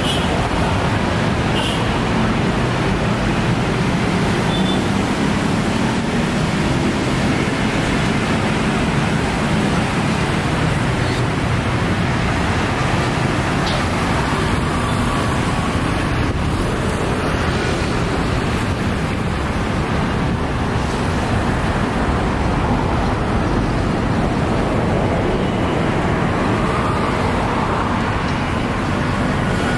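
Steady road traffic noise from a busy multi-lane city avenue, vehicles passing continuously.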